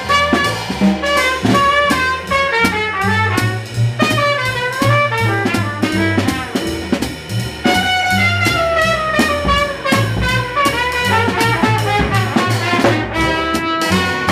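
Small acoustic jazz group playing live: a brass horn line over walking double bass and drum kit, with ride cymbal and snare strokes throughout.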